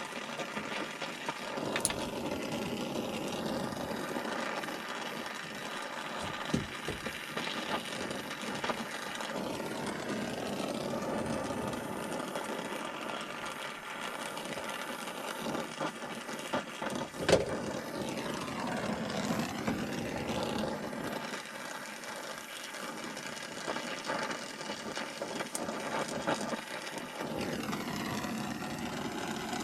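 Steady mechanical drone with a few sharp knocks, the loudest about seventeen seconds in.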